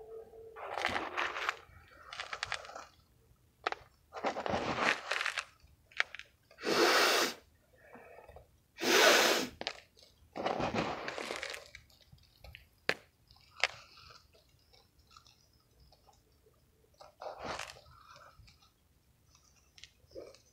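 Crushed mothballs crunching as a hand squeezes and rubs them: a string of separate crunches, each about a second long, with a few short sharp clicks between them. They come thick for the first twelve seconds and once more near the end.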